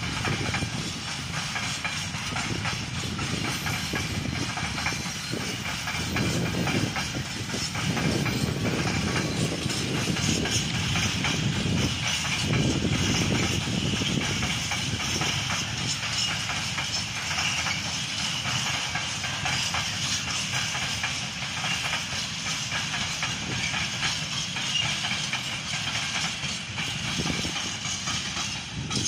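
A long freight train of empty flat wagons rolling past, with a steady noise of wheels on rails.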